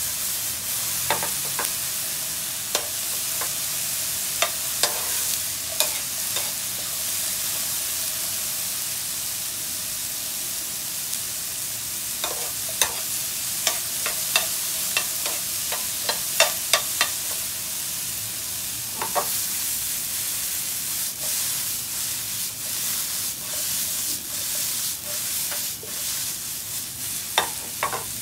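Diced king oyster mushrooms and capsicum sizzling in oil in a non-stick frying pan, a steady hiss. Several bouts of sharp clicks and clatter as a metal spoon stirs the pieces and the pan is tossed.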